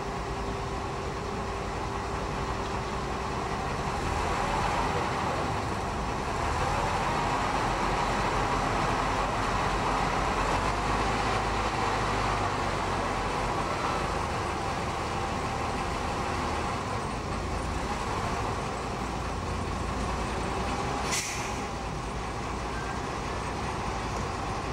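Mobile crane's engine running steadily under load as it takes the weight of a ship's anchor, with a short hiss near the end.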